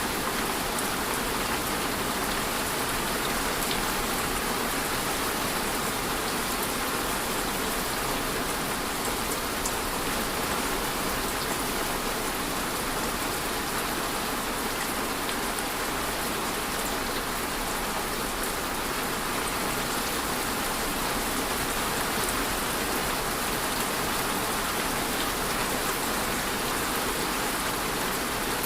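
Steady rain falling on a surface, an even hiss with scattered faint drop ticks, holding at a constant level throughout.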